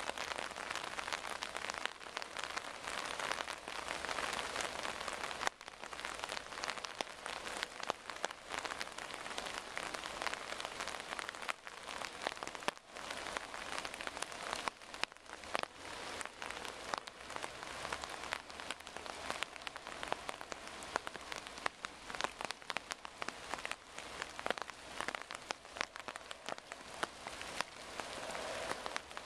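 Torrential rain falling steadily, a dense hiss broken by many sharp individual drop hits.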